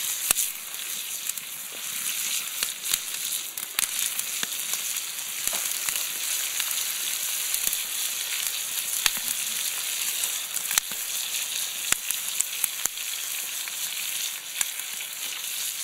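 Whole rainbow trout frying in a pan over a campfire: a steady high sizzle with scattered sharp pops.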